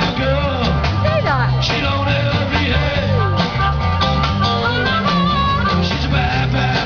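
Live band playing a rock-and-blues number: acoustic and electric guitars strumming over a drum kit, with saxophone on stage, loud and steady throughout.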